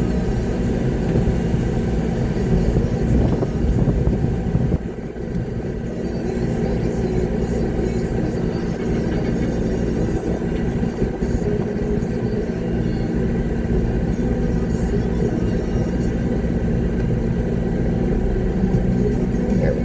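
Concrete mixer truck's diesel engine running steadily, heard from inside the cab, with a brief dip in level about five seconds in.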